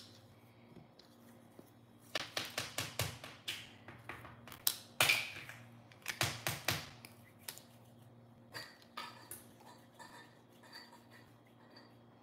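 Plastic play-dough toy tools clicking, tapping and clattering against a hard stone countertop as they are handled. A quick run of clicks comes about two seconds in, a sharper snap near five seconds, and another cluster just after six seconds. Lighter scattered taps follow.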